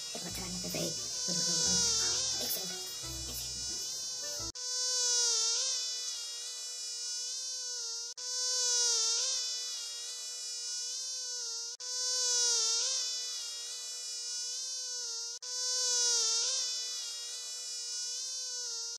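Mosquito buzzing: a thin whine that wavers in pitch and swells and fades about every three and a half seconds, looped with brief breaks. During the first four seconds or so, low thuds and knocks sound under it.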